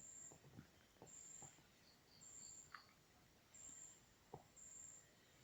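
Near silence with faint, high-pitched insect chirps, each about half a second long and coming about once a second, and a few faint ticks.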